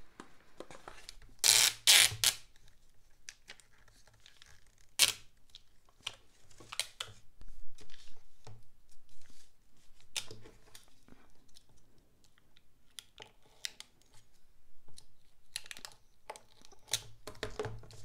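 Clear Scotch packing tape pulled off its roll with a loud rasping tear about a second and a half in, followed by a sharp click and scattered crinkling and tapping as the tape is smoothed over a foam board and cut with a utility knife.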